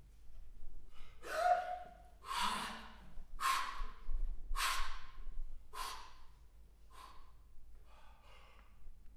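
Vocal improvisers' breath sounds: a series of about seven sharp, breathy gasps roughly a second apart, growing fainter toward the end, the first carrying a short pitched tone.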